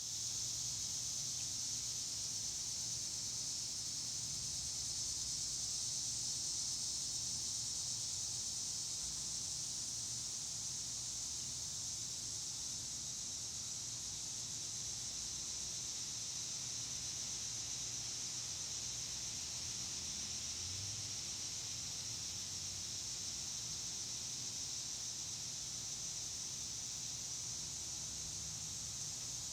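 Steady high-pitched outdoor hiss with a faint low hum beneath it. No distinct bird calls stand out.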